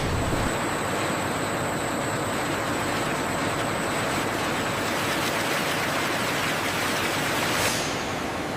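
Factory machinery running: a steady rushing noise with a faint high-pitched whine, easing off a little near the end.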